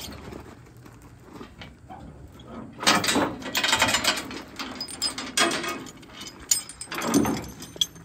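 Steel tie-down chains clanking and rattling against the sawmill's iron frame as they are unhooked, in bursts: a long rattle about three seconds in, then shorter clanks later.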